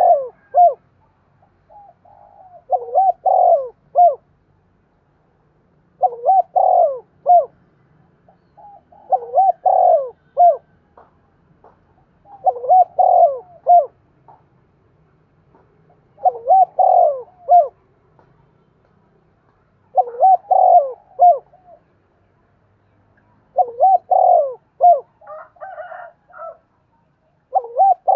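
Spotted dove cooing: a short phrase of several gliding coos, repeated about every three and a half seconds, nine times over.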